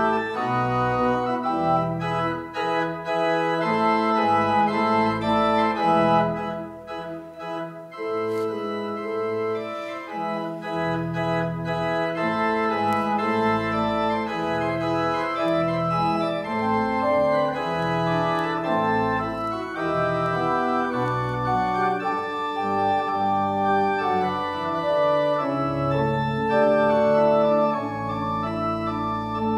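Organ music: a slow piece of sustained chords over a bass line, with the bass dropping out briefly about six seconds in.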